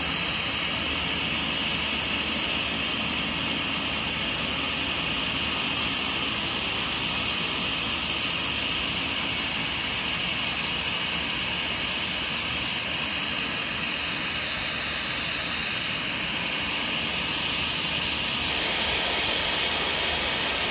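Small turboprop aircraft engines running steadily, a loud, high-pitched rushing whine that shifts slightly near the end.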